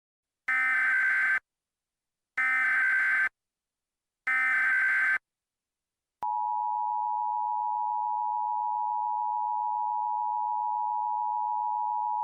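Emergency Alert System SAME header: three short bursts of digital data tones, about a second apart. About six seconds in, the two-tone EAS attention signal starts and holds steady.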